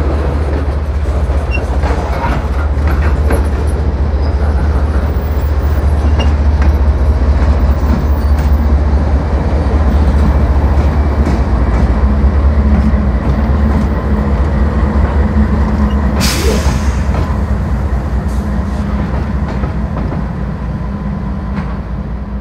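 CSX GE diesel-electric locomotives running as they slowly shove a cut of loaded hopper cars past, with a heavy steady engine rumble and the rumble of wheels on rail. It grows louder as the locomotives come close and eases off near the end, with a brief hiss about two-thirds of the way through.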